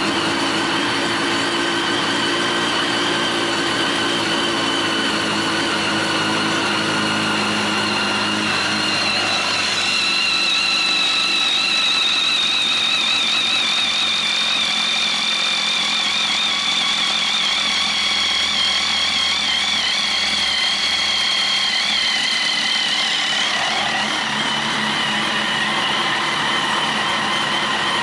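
Kawasaki ZX-10R inline-four engine idling steadily just after starting, on a test run to see whether oil pressure now builds after a new oil filter was fitted.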